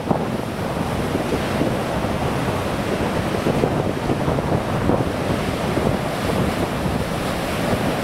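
Rough sea surf breaking continuously against the shore, with wind buffeting the microphone.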